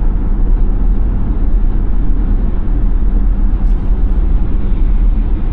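A moving car's road noise: a steady, loud low rumble of tyres and engine while driving.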